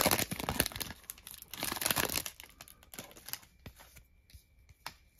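Plastic wrapper of a trading-card pack being torn open and crinkled for about two seconds, followed by a few faint clicks and rustles as the cards are handled.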